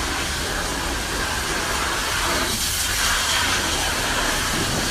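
Pressure washer spraying a high-pressure water jet onto a grimy engine: a steady hiss of the spray, turning harsher for about a second midway.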